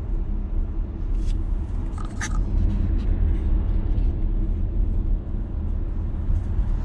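Road and engine noise inside the cabin of a moving Volvo XC90: a steady low rumble, with a faint brief tick or two about one and two seconds in.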